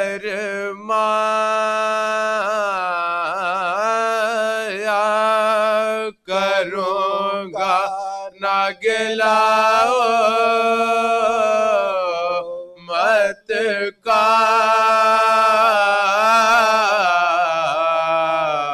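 Men reciting a marsiya (Urdu elegy) unaccompanied, a lead voice singing long, wavering held notes with others joining in, broken by a few short pauses.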